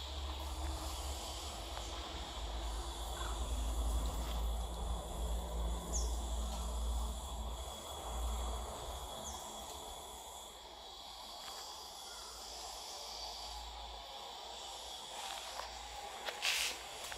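Forest ambience: wind rumbling on the microphone over a steady hiss, with a thin, steady high insect drone. A brief sharp noise comes near the end.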